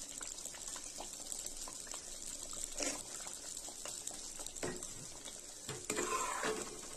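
Thick tamarind-and-sesame gravy bubbling and popping softly in a kadai, with a metal ladle stirring and scraping the pan a few times, mostly in the second half. The oil is separating from the gravy, the sign that it is nearly done.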